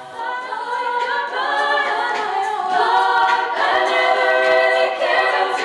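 Female a cappella group singing in close harmony with no instruments, holding chords that shift every second or so.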